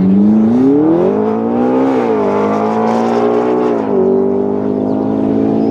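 McLaren 12C's twin-turbocharged V8 accelerating hard as the car passes and pulls away. Its pitch climbs, drops at an upshift about two seconds in, climbs again and drops at a second upshift about four seconds in, then holds fairly steady.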